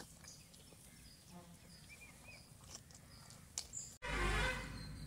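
Quiet outdoor ambience with faint, scattered bird chirps. About four seconds in, it switches suddenly to a louder, steady rush of outdoor noise.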